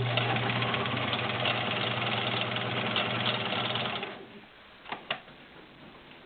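Kenmore model 1400 sewing machine and its 1.2 amp motor running at steady speed, with a steady hum and rapid needle ticking, as it stitches through three layers of leather without strain; it stops about four seconds in. Two short clicks follow about a second later.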